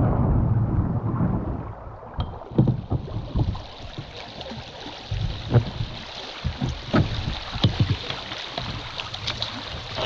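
Paddling a small boat on a river: water splashing and dripping, with irregular knocks and clicks of the paddle against the water and hull. A low rumble fills the first two seconds, then gives way to a steady watery hiss.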